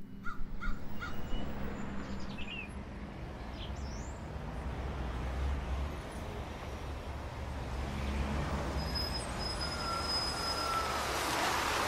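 Roadside ambience: a steady low traffic rumble with a few short bird chirps, and a vehicle's sound growing louder near the end.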